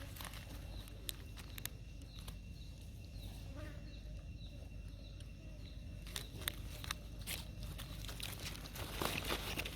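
Outdoor ambience: a short high chirp repeating about twice a second over a faint steady high tone, with scattered sharp clicks and a louder burst of rustling near the end.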